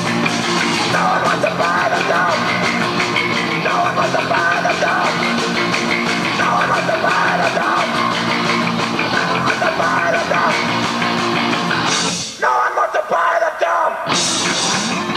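Live rock band playing loudly: electric guitars, bass, drums and keyboards, with singing. Near the end the low bass and drums drop out for about a second and a half, then the full band comes back in.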